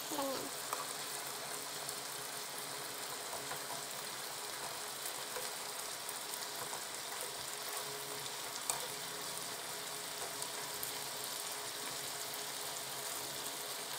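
Chicken pieces sizzling steadily as they fry in butter in a pan, the pieces still browning. A few light clicks of metal tongs against the pan come through as they are turned.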